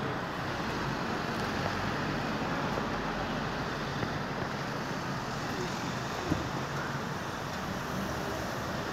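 Steady outdoor city noise, like distant road traffic, with a single faint click about six seconds in.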